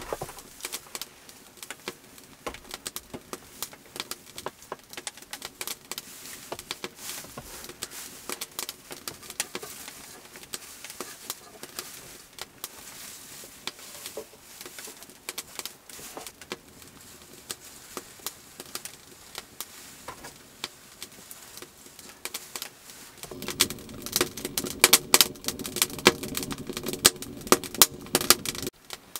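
Burlap sacking and dry hay rustling and crackling as the cloth is spread and tucked over a hay bed. Near the end it changes to a wood fire crackling in a small stove, louder and denser.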